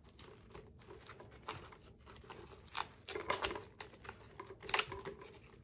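Moist potting soil being packed by a gloved hand into a cut plastic water bottle: soft, irregular rustling of soil and crinkling of the thin plastic, with a few louder scrapes about three seconds in and near five seconds.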